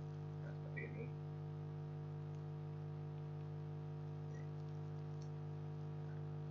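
Steady low electrical hum with several overtones, and a few faint mouse clicks, the first about a second in.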